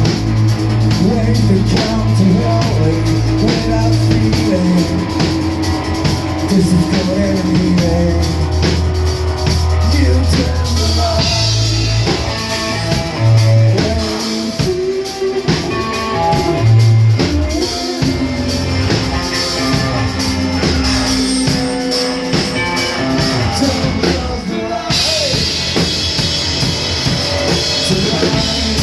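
Rock band playing live: drum kit, bass and electric guitar in an instrumental passage, with a bending, wavering melody line over the band. About twenty-five seconds in the cymbals get louder and brighter.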